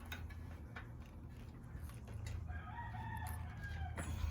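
A rooster crowing once, one long call about two seconds in, over a steady low hum and a few light clicks.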